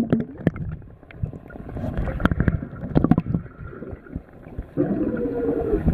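Muffled underwater sound in a swimming pool, as a child blows bubbles: low gurgling and rumble with scattered clicks and knocks, and a short muffled hum near the end.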